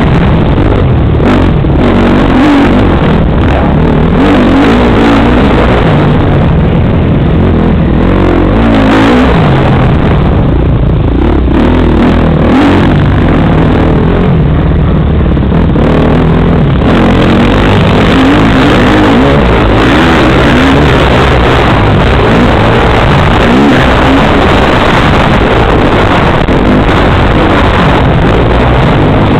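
Motocross bike engine, loud and heard up close from an onboard camera, revving up and falling back again and again as the rider accelerates, shifts and brakes around the dirt track.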